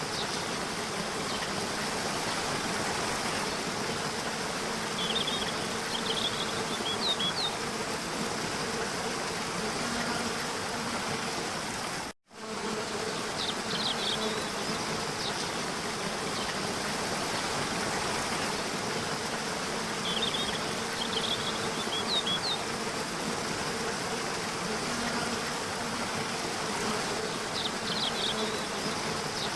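Waterfall rushing steadily, with a low insect buzz under it and brief clusters of high chirps a few times. The sound cuts out completely for an instant about twelve seconds in.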